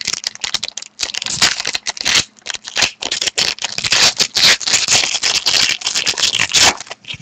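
Trading-card pack wrapper being torn open and crinkled, with a dense, irregular crackle that starts about a second in and stops shortly before the end.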